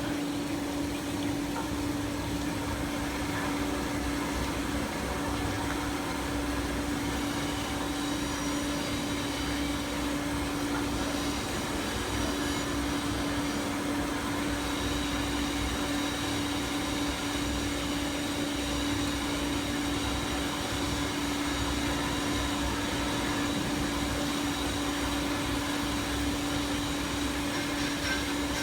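Automatic steel-cutting band saw machine running with a steady mechanical hum and a constant low tone. A thin high whine joins about halfway through.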